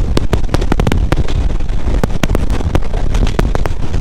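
Wind blasting a microphone held out of a moving passenger train's window: a loud steady low rumble, broken by irregular crackling pops, over the train's running noise.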